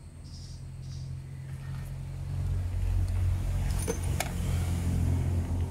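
Low engine-like drone, like a motor vehicle running nearby, swelling over the first two to three seconds and then holding steady. Two sharp clicks come about four seconds in.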